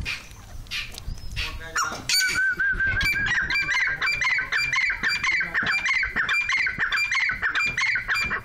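Teetar partridge calling: after a couple of seconds of scattered sounds, a fast run of loud, high, repeated notes starts about two seconds in and grows denser toward the end.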